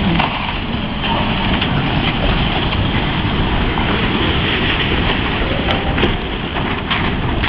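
A brick water tower collapsing: a loud, continuous rumble of crumbling masonry, with sharp cracks and knocks of breaking brick scattered through it as the tower goes over.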